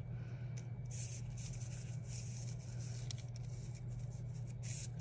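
Soft rustling of a sheet of wax paper sliding over the planner's paper page under the hands, in short spells about a second in and again near the end, over a steady low hum.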